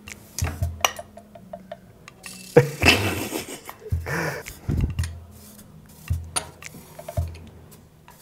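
Small plastic game pieces clicking and clattering on a tabletop, with a busier stretch of rattling in the middle, over background music with a low beat about once a second.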